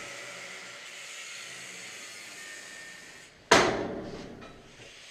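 A faint steady hiss, then one sharp, loud metal strike about three and a half seconds in that rings briefly and fades, followed by a smaller knock.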